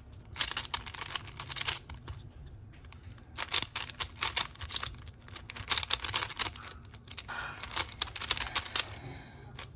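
Plastic layers of a stickerless 3x3 puzzle cube clicking as they are turned quickly by hand, in rapid flurries of clicks with short pauses between them.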